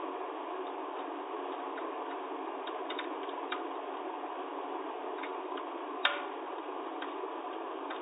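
Scattered light metallic clicks of a screwdriver working inside a manual typewriter's mechanism, with one sharper click about six seconds in, over a steady background hiss.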